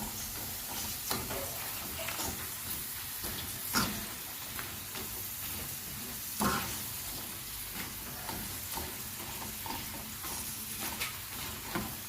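Prawn crackers deep-frying in hot oil, a steady sizzle, with scattered crackles and a few sharper knocks, the loudest about four and six and a half seconds in.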